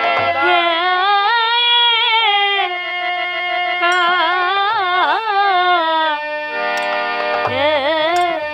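Devotional kirtan music: a woman sings a wavering, ornamented melody over the held chords of a harmonium, with violin accompanying and a few light percussion strikes.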